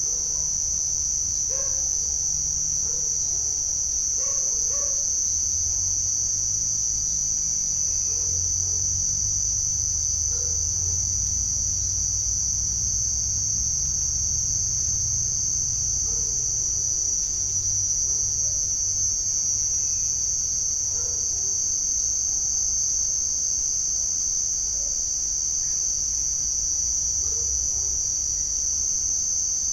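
Night insects, crickets, trilling in one steady, unbroken high-pitched chorus, with a low rumble underneath.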